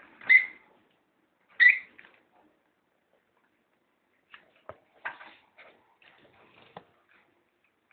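Peach-faced lovebird giving two short, sharp chirps about a second and a half apart, then a scattered run of soft clicks and scratching a few seconds later.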